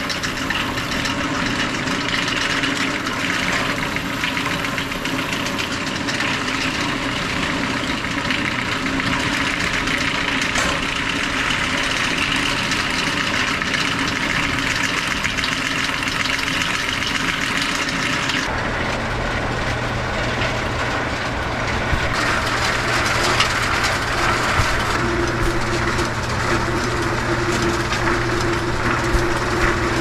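Bale elevator running steadily, carrying small square hay bales up into a barn's hay mow, a continuous mechanical clatter. About two-thirds of the way through the sound changes abruptly to a lower, humming version of the same steady running, heard from inside the mow.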